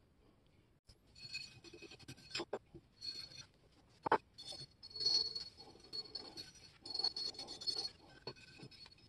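Small wire brush scrubbing a painted metal shear handle in short, repeated scratchy strokes, starting about a second in. A sharp click about four seconds in.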